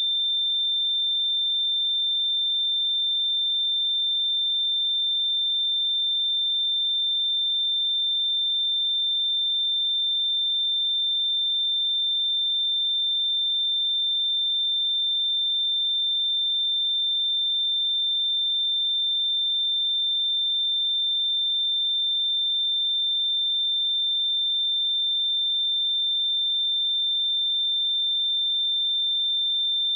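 A steady, unbroken pure sine-wave test tone at 3577 Hz, a single high pitch with no other sound.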